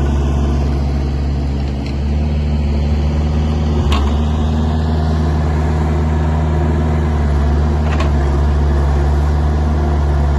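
Kubota mini excavator's diesel engine running steadily, easing briefly about two seconds in, with a sharp knock about four seconds in and another near eight seconds.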